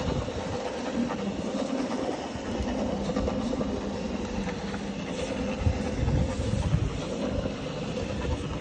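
Single-disc rotary floor scrubber running with its brush working a soapy, foam-covered rug: a steady motor hum over an uneven rumble.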